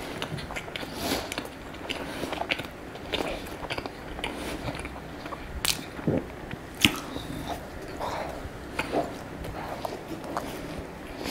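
Close-miked chewing of a cherry-filled croissant: irregular soft mouth clicks and smacks, with two sharper clicks about six and seven seconds in.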